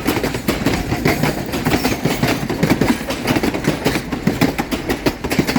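Durango & Silverton narrow-gauge train cars rolling past, with a dense, irregular clatter of wheels clicking and knocking over the rail joints.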